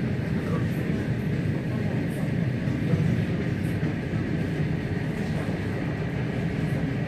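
Electric suburban train running at speed, heard from inside the carriage: a steady low rumble of wheels on the rails.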